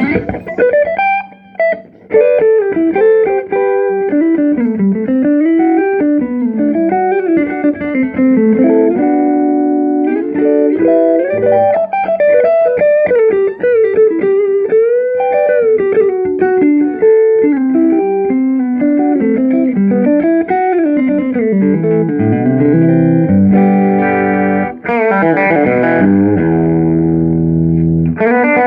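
Swamp ash Telecaster played clean through Louis Electric tweed-style tube amps: single-note melodic lines with string bends, moving to chords near the end.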